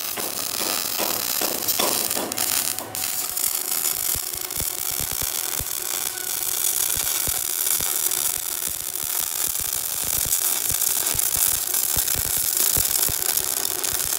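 Semi-automatic wire-feed welder arc crackling steadily as a bead is laid along the seam of a steel floor plate on a truck's cargo bed. This is the full weld run over plates that were first tack-welded in place.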